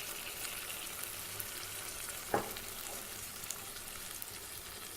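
Marinated chicken sizzling in hot oil in a pan with an onion-tomato masala, a steady frying hiss. A single knock sounds a little over two seconds in.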